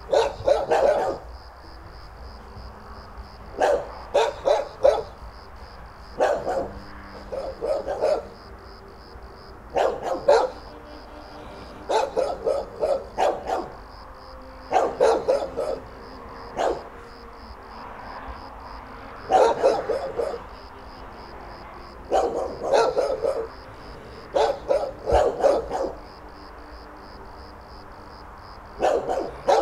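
Dogs barking in clusters of two to four barks, repeated every two to three seconds. A steady, faint high-pitched tone runs underneath.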